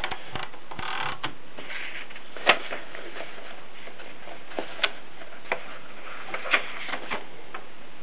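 Tippa portable typewriter's mechanism being handled: a rustle about a second in, then a dozen or so sharp mechanical clicks and clacks at uneven gaps, the loudest about two and a half seconds in. There is no steady typing rhythm.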